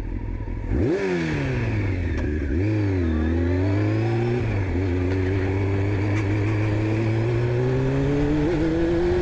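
Honda CBR600 F4 inline-four engine heard from the rider's seat while riding: the revs rise sharply about a second in and fall away, dip and pick up again near three seconds, then climb slowly and steadily as the bike accelerates.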